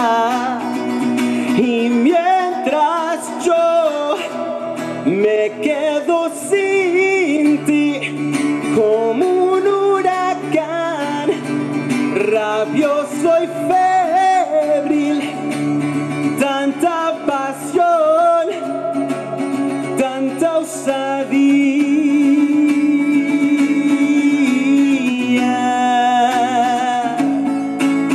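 Male singer singing live with band accompaniment, his voice sliding through long runs and holding one long note about three quarters of the way through.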